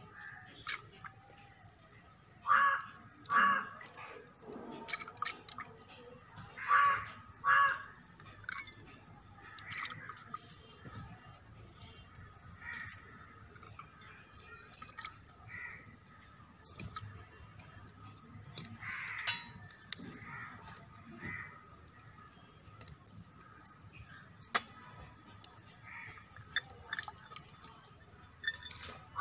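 Crows cawing, with loud calls in pairs about 3 and 7 seconds in and more calls later on. Behind them runs a faint, steady, high-pitched pulsing trill.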